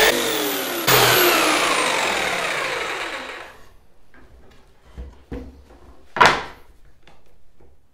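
Electric jigsaw motor running loudly, then winding down with a falling whine over about two and a half seconds after it is switched off. A few knocks follow, the loudest about six seconds in, as the saw is set down on the wooden workbench.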